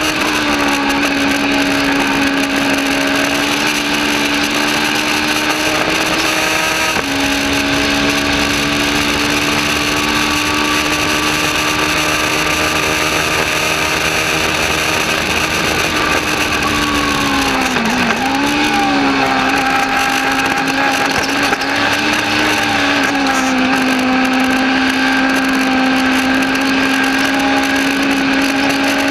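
Legends race car's Yamaha motorcycle engine running hard at high revs, heard from inside the cockpit. Its pitch holds mostly steady, changes step-wise near 7 s, dips and recovers sharply about 18 seconds in as the driver lifts for a corner, and dips less deeply around 22 seconds in.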